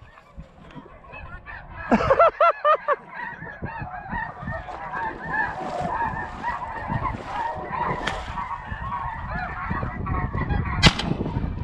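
A dense chorus of snow geese calling, with a few loud, close honks about two seconds in. Near the end, a single shotgun shot.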